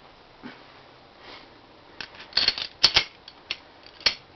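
Metal clicks and clacks as the barrel and slide of a Smith & Wesson semi-automatic pistol are handled and fitted together during reassembly. There are several sharp clicks about two to three seconds in and another near the end.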